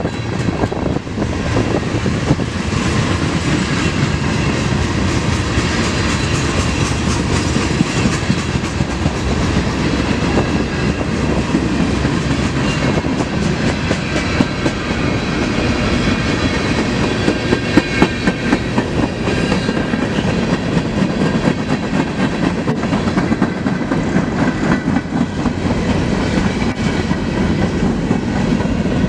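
Freight cars of a CSX manifest train rolling past at close range: a steady rumble with wheels clacking over rail joints.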